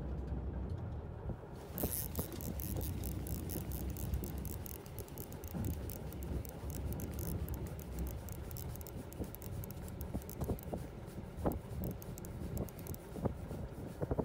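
Low wind rumble on the microphone with a dense, fine crackling rattle that starts about two seconds in and fades near the end, and a few sharp clicks.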